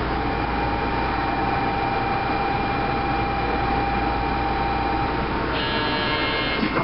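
Osaka New Tram rubber-tyred automated car standing at a station with a steady hum and hiss from its onboard equipment, under a steady high tone that stops about five seconds in. Near the end a brief electronic signal of several tones sounds, followed by a single knock.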